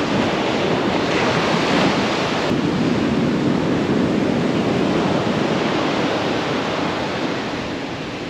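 Ocean surf breaking and washing up the beach, a steady rushing with wind buffeting the microphone; it eases off slightly near the end.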